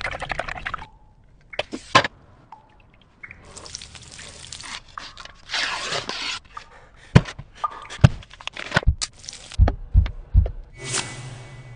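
A string of short food-preparation sounds: a wire whisk rattling quickly against a bowl as eggs are beaten at the start, then bursts of rustling, then a run of sharp knocks and dull thumps.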